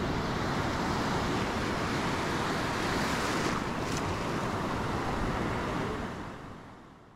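A steady rushing noise that fades out over the last second or so.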